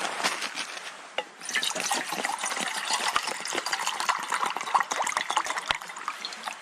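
Liquid being poured into a container, a gurgling, splashy pour that starts about a second and a half in.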